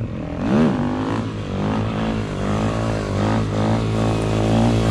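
Suzuki DRZ-400SM's single-cylinder four-stroke engine revving as the bike is ridden off. The revs sweep up sharply about half a second in, then rise and fall over and over through the gears, over a steady low engine hum.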